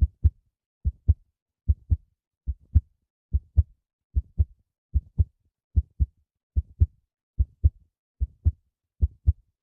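Heartbeat sound effect: paired thumps, lub-dub, repeating steadily about every 0.8 seconds (roughly 75 beats a minute) with silence between beats.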